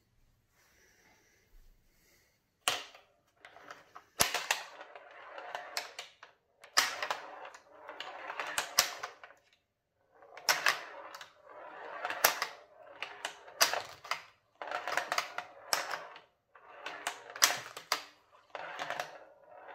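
A mechanical tabletop pinball machine of wood and cardboard being played: sharp plastic-and-wood clacks of the spring-loaded flippers and of the ball knocking off the obstacles, with the ball rattling across the playfield in irregular bursts. It starts about two and a half seconds in.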